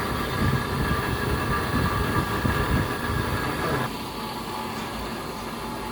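Hydraulic hose crimping machine running, a steady mechanical whine over a low rumble, which cuts off suddenly about four seconds in, leaving a lower steady hum.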